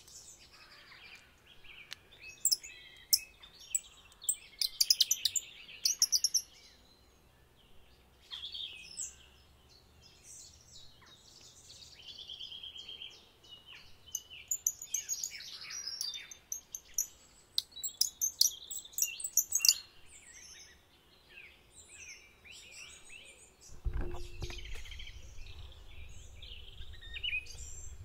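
Several songbirds singing at once: overlapping chirps, quick trills and whistled phrases. About four seconds before the end a steady low rumble with a faint hum comes in under the birdsong.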